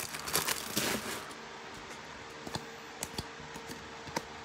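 A trading-card pack's crimped wrapper crinkling and tearing as it is pulled open, for about the first second, then a few light clicks of stiff cards being handled and fanned out.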